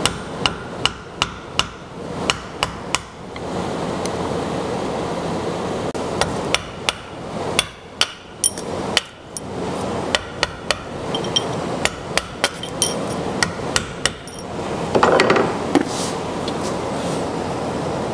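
Hammer blows on an old chisel driving the drilled-out remnants of a reinforced plastic handle out of the eye of a 10-pound sledge hammer head held in a bench vise. Sharp strikes come in quick runs of several blows with short pauses between them, and a brief scraping burst follows about fifteen seconds in.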